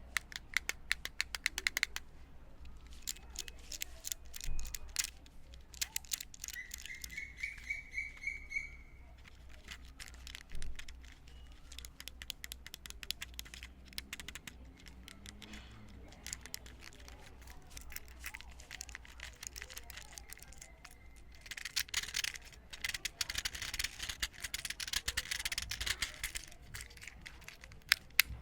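Fidget Cube's switch, buttons and dials clicking close to the microphone, in runs of rapid small plastic clicks, densest near the start and again about two-thirds of the way in. A short run of high chirps comes a few seconds in.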